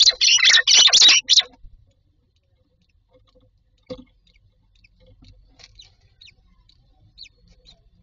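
Adult common myna in a nest box giving a loud burst of rapid harsh calls for about a second and a half. A single knock follows about four seconds in, then faint short high chirps.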